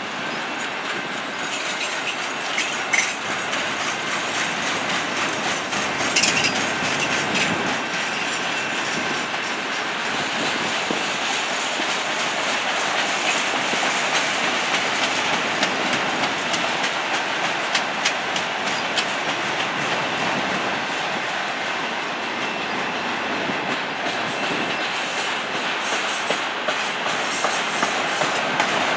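CN freight train's autorack cars rolling past: a steady rumble of steel wheels on rail with irregular clicks and clanks as the trucks cross rail joints.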